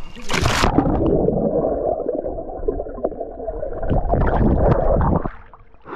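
A splash as the microphone plunges into a pool, then muffled underwater rushing and gurgling of stirred water and bubbles, which stops suddenly about five seconds in as it comes back up.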